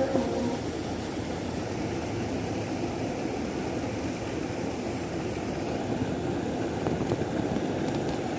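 Steady rushing of flowing river water, a constant low noise without breaks.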